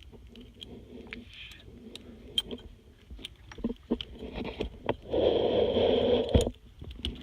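Scattered light clicks and scrapes of small parts being handled, then a loud hissing rush for just over a second about five seconds in that cuts off abruptly.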